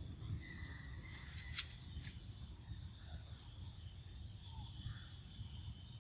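Insects chirring steadily in the forest, a high even drone over a low rumble, with a faint thin whistle in the first couple of seconds and a few light clicks.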